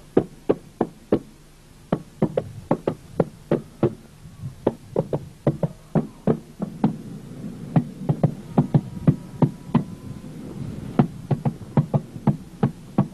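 Rapid, irregular knocking on a hard surface: sharp knocks at about three to four a second, with a short pause near the start.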